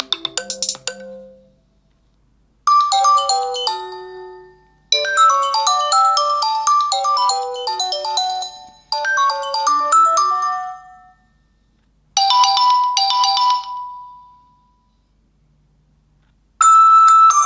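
Nokia 2.2 phone ringtones playing in turn: short, bright, chiming electronic melodies, several of them, each breaking off with a brief pause before the next one starts.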